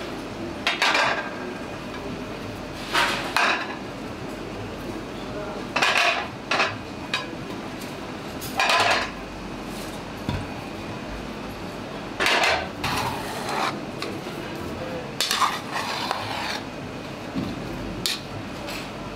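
Ceramic plates clattering and clinking as they are lifted off a large steel rice tray and set down on one another, a few separate knocks every second or two over steady background noise. Near the end a metal ladle knocks against the tray.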